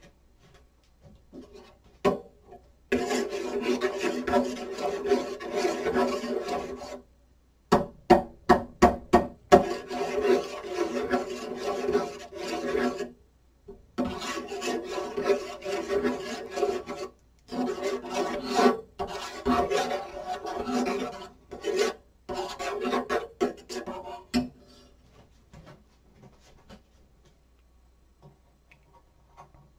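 Rasping, scraping strokes in runs of a few seconds each. There is a quick series of sharp strokes about eight seconds in, and it falls quiet near the end.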